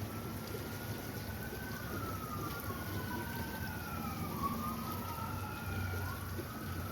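A distant siren wailing, its pitch slowly rising and falling over a few seconds, with more than one wail overlapping, over a steady rush of creek water.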